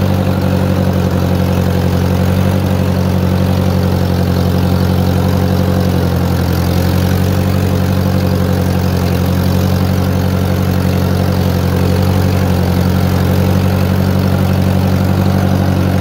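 1955 Massey Ferguson TO-35's four-cylinder gasoline engine running steadily at an even speed, with no revving.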